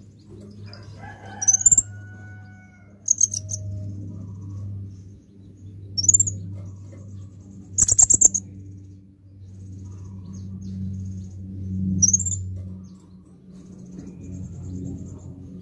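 Purple-throated sunbird (kolibri ninja) calling: three sharp, high, upward-sweeping notes, with short fast trills between them, the loudest trill about halfway through. A steady low hum runs underneath.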